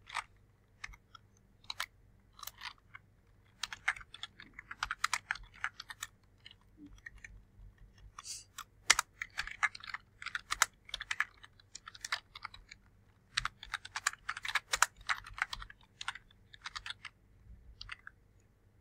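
Typing on a computer keyboard: irregular key clicks, sparse at first, then quick runs through the middle, thinning out near the end.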